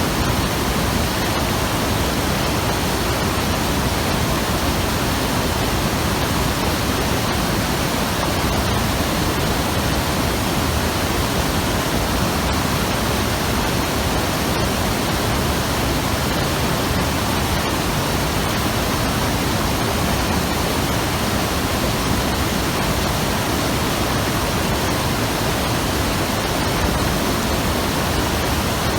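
Mountain river (the Hayakawa) rushing over rocks: a steady, full, unbroken roar of flowing water.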